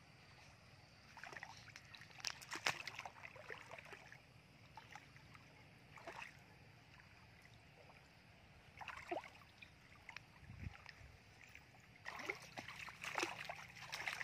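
Bare feet wading through shallow muddy water: scattered light splashes and sloshes, busier and louder near the end as a hand reaches into the water among the plants.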